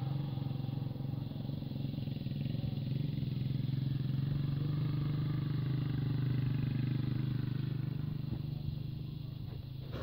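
A vehicle engine running steadily at a low, even pitch.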